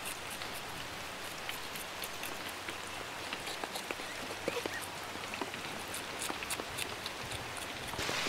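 Steady rain falling, with many short sharp ticks of drops striking nearby surfaces.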